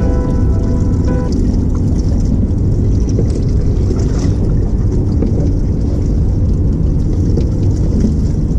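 Wind buffeting the camera microphone on an open boat, a steady heavy rumble mixed with water noise. Background music fades out about a second in.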